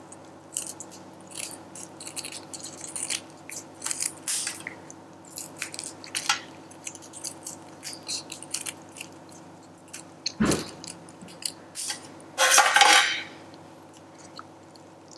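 Kitchen scissors snipping through the shell of cooked mantis shrimp in a run of crisp, irregular cuts. A single thump comes about ten seconds in, and a louder crackle of shell a couple of seconds later, the loudest sound here.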